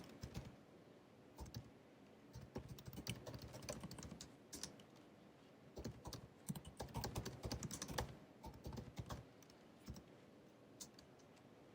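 Typing on the built-in keyboard of a 2019 16-inch MacBook Pro: runs of quick, light keystrokes broken by short pauses. The longest run comes from about six to nine seconds in, and only a couple of isolated taps follow.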